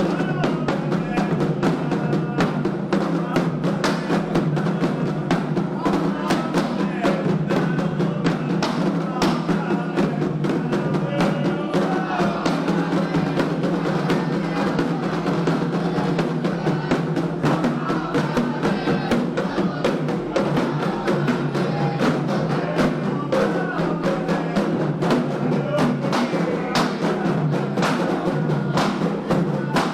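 Candomblé ritual music: atabaque hand drums playing a steady, dense beat, with a group of voices singing a chant over it.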